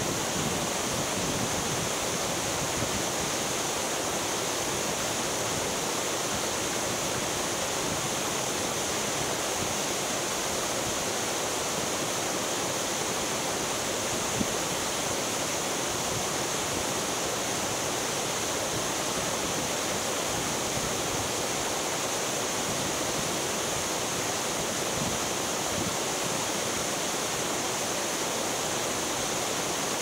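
Steady rush of water, an even roar with no breaks.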